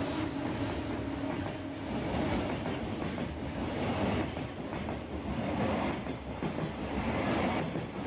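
Freight train passing, its wagons rumbling along the rails with a rhythmic clatter of wheels over the rail joints. A steady hum fades out about two seconds in.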